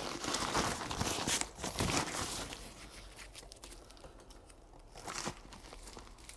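Dry, papery garlic bulb skins crinkling and crackling as the bulbs are handled and picked apart. The rustling is busiest in the first couple of seconds, then thins out, with a brief rustle again about five seconds in.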